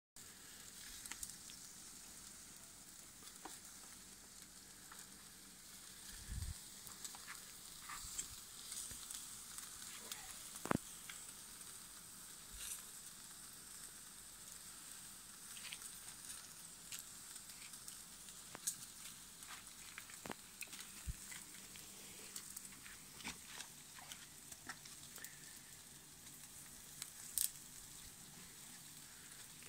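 Meat sizzling faintly on an iron grill grate over wood embers, with scattered pops and crackles. One sharp crack comes about eleven seconds in.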